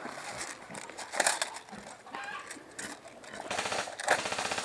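Airsoft guns firing, with scattered clicks and knocks. About three and a half seconds in, a rapid automatic burst sets in as a fast, even rattle.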